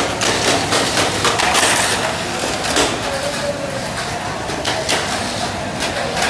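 Tamiya Mini 4WD cars running on a plastic lane track: a faint wavering motor whine under a dense run of rapid clicks and rattles.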